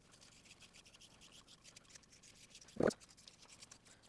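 Hockey tape being wound tightly around a wooden bat handle: faint crackling and rubbing of the tape pulling off its roll and hands smoothing it on. A single short knock comes a little under three seconds in.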